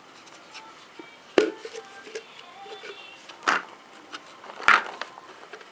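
Cat-treat packaging being handled: faint rustling and ticking with three sharp clicks or knocks, about a second and a half in, halfway through and near the end.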